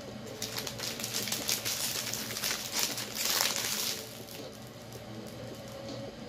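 Irregular crackly rustling noise that builds for about three and a half seconds and stops suddenly about four seconds in, over faint background music.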